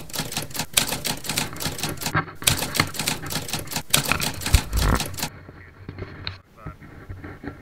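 Typewriter sound effect: a quick run of keystroke clicks with a short pause about two seconds in, stopping about two-thirds of the way through.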